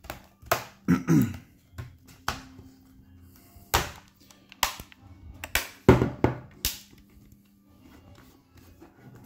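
Bottom cover of a Samsung Notebook 9 Pro laptop being pressed back onto the chassis, its clips snapping into place in a string of irregular sharp clicks and knocks, the loudest about a second in and about six seconds in.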